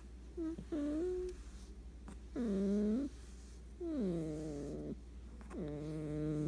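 Sleeping cat snoring: a run of pitched, humming breaths about every one and a half seconds, several sliding down in pitch as they begin.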